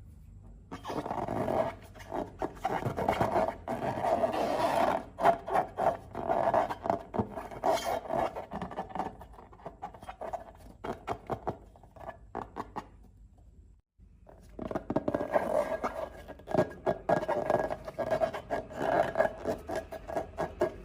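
Slime being squished and worked by hand, a dense run of sticky clicks and scraping, stopping briefly about two-thirds of the way through before starting again.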